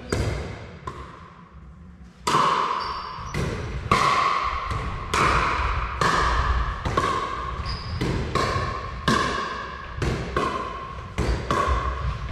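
A pickleball rally: paddles striking a plastic ball back and forth, a sharp pock about every half-second to second, each ringing out in the echo of a large hall. The exchange starts in earnest about two seconds in.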